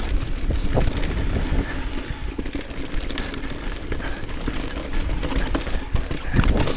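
Mountain bike clattering over a rock garden: a quick, uneven run of knocks and rattles from the bike, over a steady rumble of wind on the microphone.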